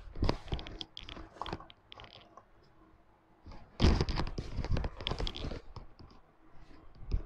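Handling noise: irregular clicks and knocks of things being handled on a desk. The loudest cluster comes about four seconds in.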